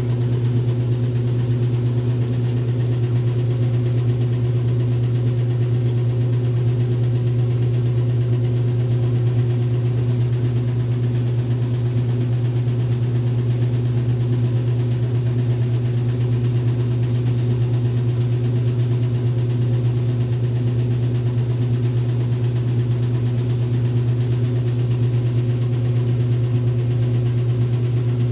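1962 RCA Whirlpool LJA70 washing machine running with a steady low motor hum, even and unchanging throughout.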